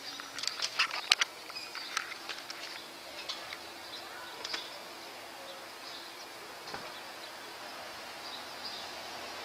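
Outdoor ambience: a cluster of short, sharp high chirps in the first two or three seconds, then a steady faint high hiss.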